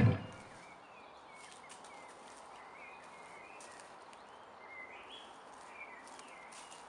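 Background music cuts off at the start, then faint birds chirp in short calls over a low hiss, with a few light clicks.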